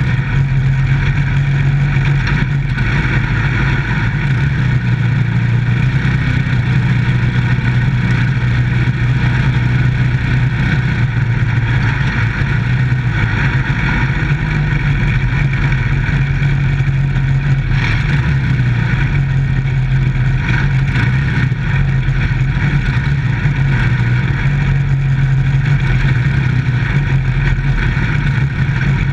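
Microstock dirt-track race car's engine running loudly at a nearly steady pitch, heard from inside the car's cockpit.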